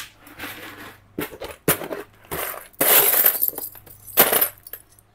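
Metal coin charms clinking and rattling as a hand rummages through them in a plastic storage tub, with the plastic tub and lid knocking and scraping. A run of short, irregular clattering bursts, loudest about three seconds in and again just after four seconds.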